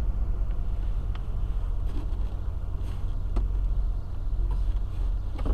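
Steady low rumble of a car's engine and road noise heard inside the cabin as the car moves slowly in traffic, with a few faint ticks.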